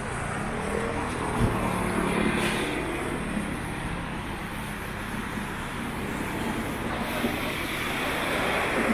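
Steady city street traffic noise from vehicles on rain-wet roads, swelling briefly about two and a half seconds in.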